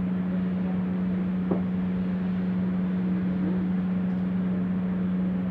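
A steady low hum over a constant hiss, the drone of a running motor or fan, with one faint short sound about one and a half seconds in.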